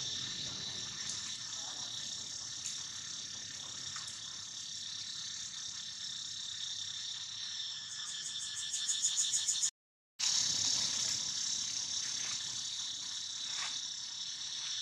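Insects chirring in a steady, high-pitched chorus, which swells into a rhythmic pulsing about eight seconds in. The sound cuts out completely for about half a second near the middle, and a few faint ticks sit beneath it.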